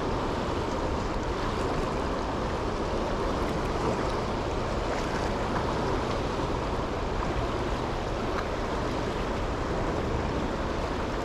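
Steady rush of a fast-flowing river running over rapids, an even wash of water noise with no distinct splashes.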